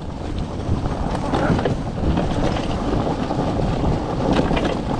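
Wheels of a dog-drawn four-wheeled training cart rolling fast over leaf-covered forest ground, a steady rumble with scattered small clicks and knocks from the frame, with wind buffeting the microphone.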